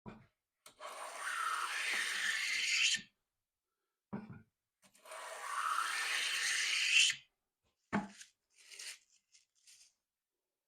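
Taylor Toolworks No. 6 fore plane taking two long cutting strokes along a pine board, each a hiss about two seconds long. There are short knocks as the plane is set down on the board, and a few brief scrapes near the end.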